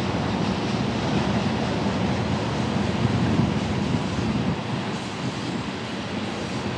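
Loaded ethanol tank cars of a freight train rolling past on the rails: a steady rumble of wheels on track that eases off slightly about two-thirds of the way through.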